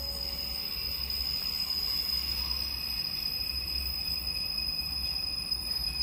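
Railway station platform ambience: a steady high-pitched whine and a faint hiss over a low rumble that swells and fades, with no train passing.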